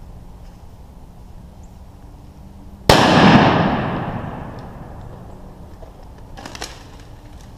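A single shotgun blast about three seconds in, fired close by, that echoes and dies away over about two seconds. A short run of clicks follows near the end.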